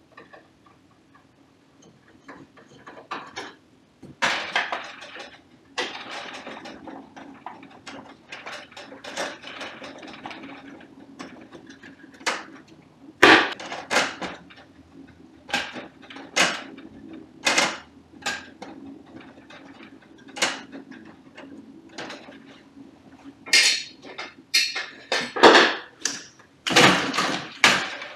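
Clicks, knocks and scraping from a Canon imageRunner 3570 copier as a screwdriver works at its fixing (fuser) assembly and the unit is worked loose and drawn out of the machine. The knocks come thicker and louder in the second half.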